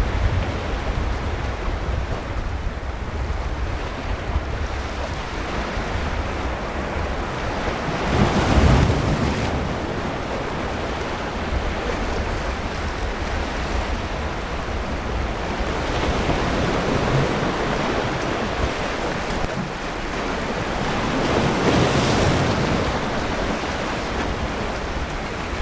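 Sea waves breaking and washing on the beach. The surf swells louder about eight seconds in and again near the end, over a low rumble of wind on the microphone.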